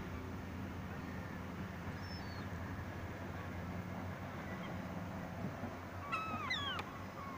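Seagulls calling: a faint cry about two seconds in, then a quick run of loud falling cries near the end, over a steady low background noise.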